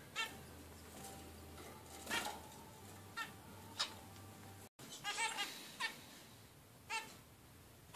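Zebra finches calling: short calls about once a second, with a quick run of several calls about five seconds in.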